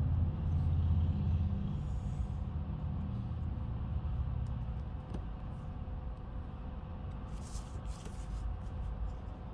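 Low steady rumble with a faint hum under it. A brief rustle of paper and plastic comes about seven and a half seconds in, as a clear plastic drafting triangle is slid off the drawing paper.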